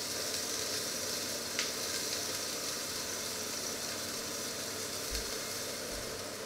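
Steady hiss of fat heating in a cast-iron frying pan with its lid on, with a single click about one and a half seconds in.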